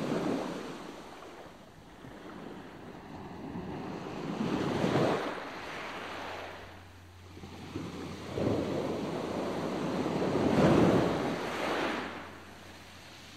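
Rushing wind and sea noise on the open deck of a boat under way, swelling and fading about four times in surges. A faint steady low hum comes in about halfway.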